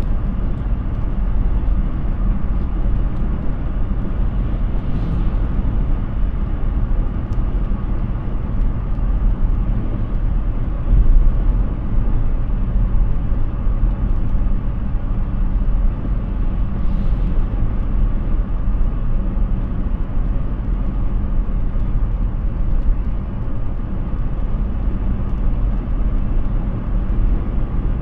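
Steady low road and tyre rumble of a Hyundai Ioniq 6 electric car driving, with no engine note, and a faint swish about every twelve seconds.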